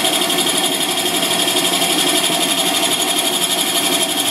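Electric coffee-grinding machine running steadily at full speed, a loud, even machine noise with a strong high whine and a fast, even flutter.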